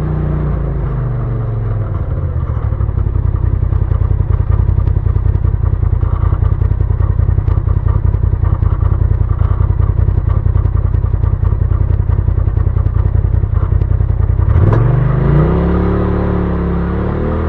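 Side-by-side UTV engine: it drops from a higher pitch to low, steady revs, then runs with a fast low pulsing and light clatter for most of the stretch. Near the end it revs up sharply with a single sharp snap and pulls away, the pitch wavering under throttle.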